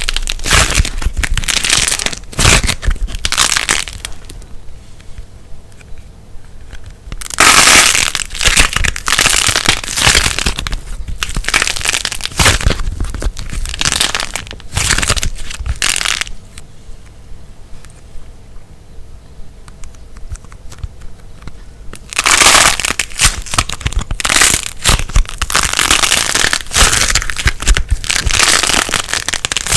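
Light plasticine being kneaded and squeezed into slime by hand, giving dense runs of sharp crackles and pops. The crackling comes in bouts, easing off for a few seconds twice and then starting up loud again.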